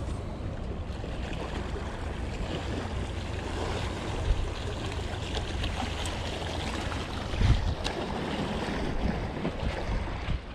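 Wind buffeting the microphone over small waves washing against the rocks of a jetty, with two dull thumps about four and seven and a half seconds in.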